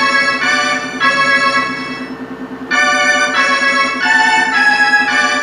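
Roland D-50 synthesizer playing a melody on an organ-like patch: sustained notes and chords that change every fraction of a second. It drops quieter for a moment about two seconds in.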